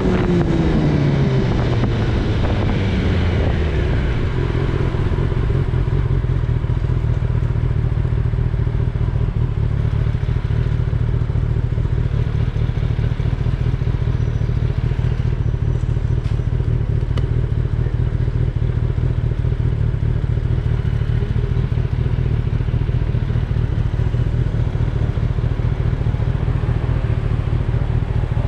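Kawasaki Ninja ZX-10R's inline-four engine on the move: its revs drop over the first few seconds as the bike slows, then it runs at a steady engine speed.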